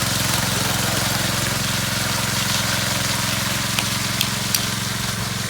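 Petrol engine of a concrete power trowel running steadily as its blades work the slab. Three short sharp clicks come about four seconds in.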